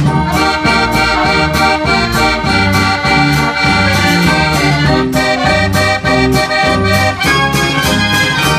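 Dutch street organ playing a lively tune from a Russian medley: held chords of pipes over a pulsing bass, with a steady beat.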